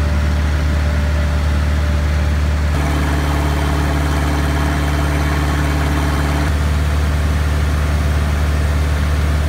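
Engine idling steadily through a homemade fiberglass-packed glasspack muffler, cut to the same engine idling through an open straight pipe about three seconds in, which adds an extra steady hum and more mid-range noise, then back to the glasspack about three and a half seconds later.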